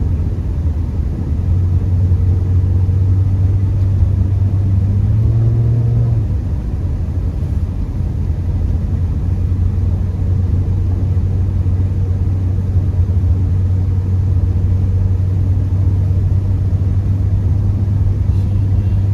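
Steady low rumble of a Honda Accord's engine and tyres, heard from inside the cabin while driving on a snow-covered road, with a brief rise in pitch about five seconds in.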